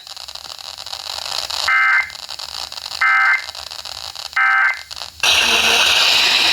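Emergency Alert System end-of-message code: three short data bursts of a few steady tones each, about a second apart, over radio hiss. Loud static comes in about five seconds in.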